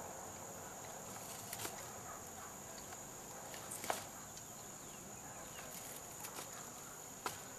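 Quiet handling sounds of pliers and hands pulling the skin off a small catfish on plastic trash-bag sheeting: a few sharp clicks and crinkles, the sharpest about four seconds in and near the end. Under them runs a steady, high-pitched insect drone.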